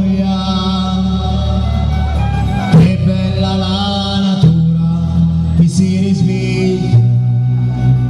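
Live Calabrian folk music: a man sings in a chant-like style over held bass notes that change every couple of seconds and other instruments, with a few sharp percussion hits.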